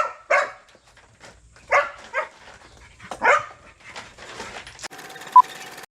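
A dog barking about five times, the barks in quick pairs, in the first few seconds. A short, sharp beep comes near the end.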